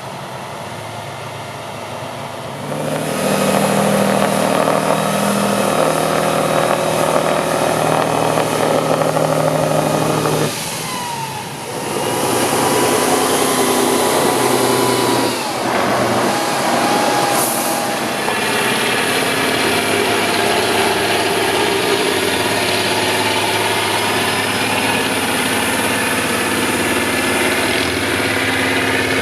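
Heavy off-road trial truck's diesel engine under load, growing louder about three seconds in as it revs. The engine note briefly drops near eleven seconds, then picks up again with a whine gliding in pitch, and it keeps running.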